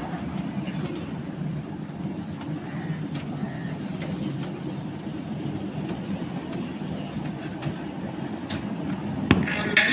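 Steady low rumble of a moving vehicle, with a sharp knock near the end.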